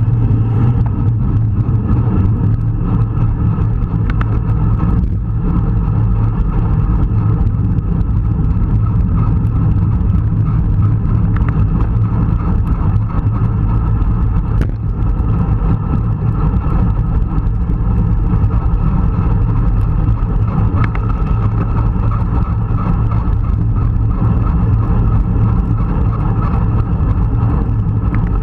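Steady, loud rush of wind over the microphone of a camera on a racing bicycle at speed, mixed with tyre and road noise, with a strong low rumble.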